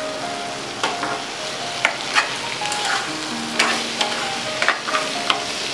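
Sliced onions, tomatoes and cashews sizzling in ghee in a non-stick frying pan while a plastic spatula stirs them, with sharp scrapes and taps of the spatula against the pan several times.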